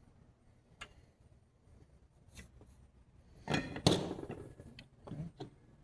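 Small parts and tools being handled on a workbench: a few single clicks, then a cluster of louder knocks and clatter about three and a half seconds in, and a couple more knocks near the end.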